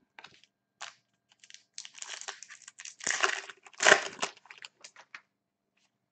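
Foil trading-card pack crinkling as it is torn open and handled, in a run of crackly bursts that is loudest a few seconds in and dies away near the end.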